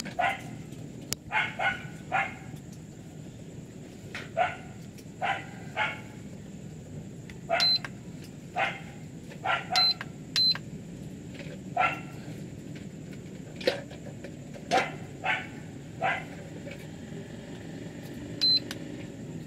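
A dog barking repeatedly, single short barks at irregular intervals. Four short high beeps from a LiPo balance charger come in among them as its buttons are pressed.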